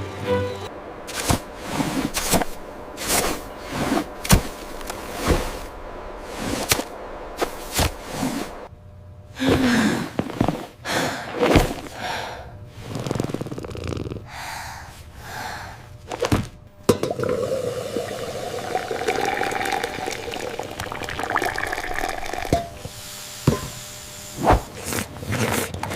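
A run of sharp knocks and thuds, then from about seventeen seconds in a steadier stretch that sounds like pouring or running water, with more knocks near the end.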